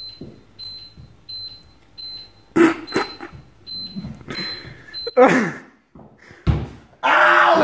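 A short, high electronic beep repeating about twice a second, among scattered knocks and a falling, voice-like sound. Loud music comes in near the end.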